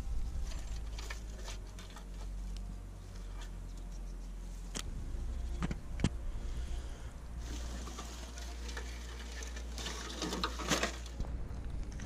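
Rustling and crackling of dry grass, leaves and twigs on a forest floor as someone moves about and steps through it, with scattered sharp snaps, the loudest about 6 seconds in, and a busier patch of crackling near the end, over a low steady rumble.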